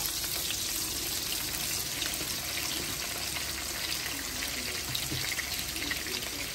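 Sliced shallots frying in hot oil in a wok: a steady sizzle.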